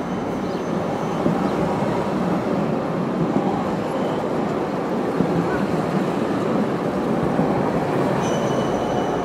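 Tram running on street rails, a steady rumble, with a faint high wheel squeal starting near the end.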